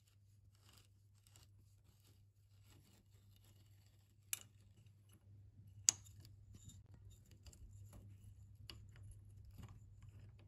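A rusty slotted screw on an old pipe vice being worked loose with a screwdriver and then turned out by hand: faint metal scraping and gritty ticking, with two sharp clicks a second and a half apart near the middle.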